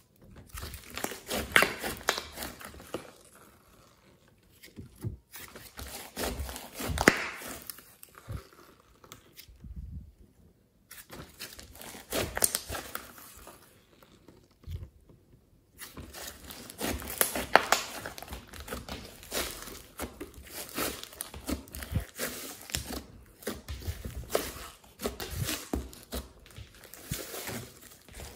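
Hands stretching, pulling apart and squeezing a large lump of glossy slime mixed with clay, giving dense runs of small sticky crackles and clicks as it tears and its air pockets pop. The sound stops briefly twice, about ten and fifteen seconds in.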